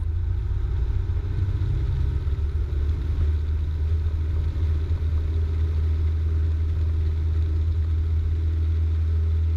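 Cessna 172's engine and propeller droning steadily at full takeoff power during the takeoff roll of a touch-and-go.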